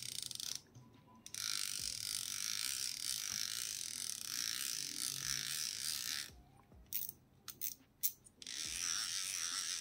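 Drag clicker of a Daiwa Steez A TW HLC baitcasting reel clicking rapidly and loudly as the drag slips. It goes in long runs, broken by a short pause about a second in and by a few brief stops and starts between about six and eight seconds in.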